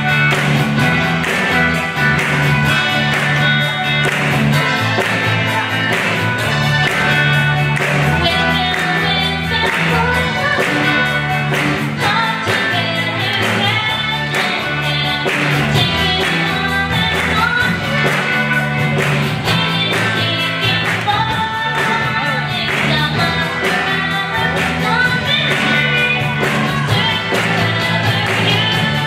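Live rock band of children playing a song: electric guitars, bass and drums, with a girl singing the lead vocal.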